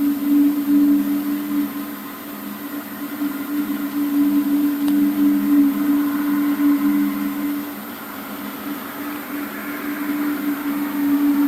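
An unexplained low droning hum of the kind reported as 'strange sounds' in the sky: two steady low notes held together, swelling and fading in loudness, dipping about two-thirds of the way in and growing louder again near the end.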